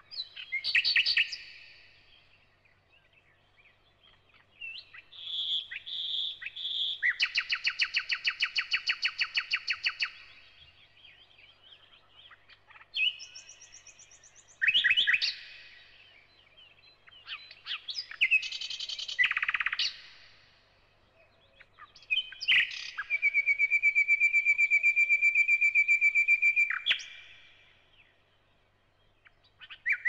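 Thrush nightingale (Luscinia luscinia) singing: separate phrases of whistles, clicks and fast repeated notes, with pauses of a second or more between phrases. Two phrases are long rattles of rapidly repeated notes, the longer one about four seconds near the end.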